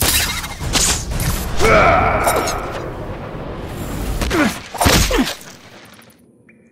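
Animated fight sound effects over a music score: a string of sudden hits and whooshes, with a loud hit at the start and two quick falling-pitch swooshes between about four and a half and five seconds in, then it all dies away.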